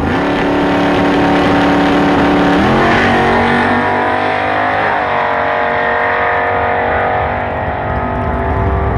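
Drag car's engine launching off the line and accelerating away down the strip. Its note climbs in pitch about three seconds in and steps back down about five seconds in, then holds as the car pulls away.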